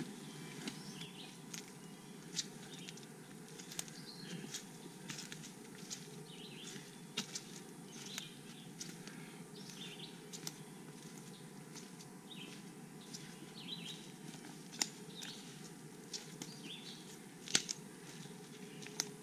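Footsteps crunching through forest leaf litter, with scattered sharp snaps and clicks of twigs underfoot at an irregular pace.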